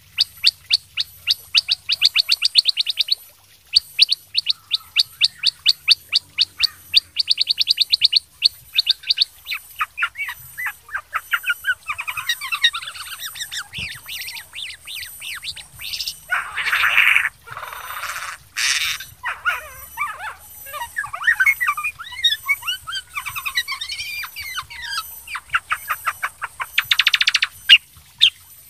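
Kutilang sutra songbird in full song: fast runs of sharp, repeated notes, then a varied chattering warble with a couple of harsh rasping notes midway, and another rapid run near the end.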